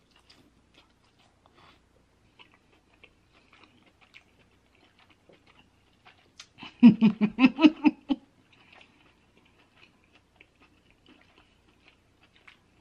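Close-miked chewing of king crab meat: soft wet mouth sounds and small clicks. About halfway through comes a loud, quick run of pitched, pulsing vocal sounds from the eater's full mouth, lasting under two seconds.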